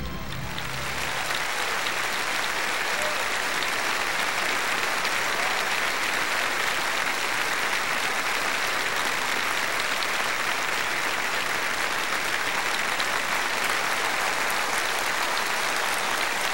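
Large audience applauding steadily and without a break, a long ovation after a piano-and-orchestra piece.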